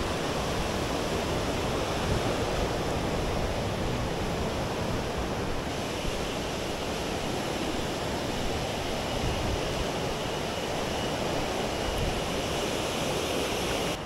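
Mountain stream rushing over rocks: a steady, even rush of flowing water.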